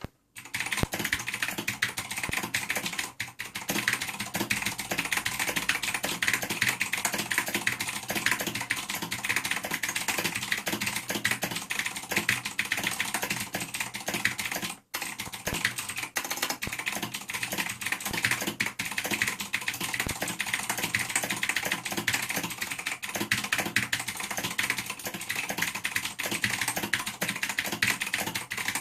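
Razer BlackWidow Ultimate 2013 mechanical keyboard with clicky Cherry MX Blue switches, typed on fast in a dense, continuous stream of key clicks. The typing stops briefly about three seconds in and again about halfway through.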